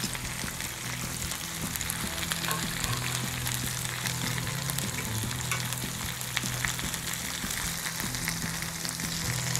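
Chicken grilling in hot fat, a steady sizzle dotted with small crackles and spits, over a low steady hum.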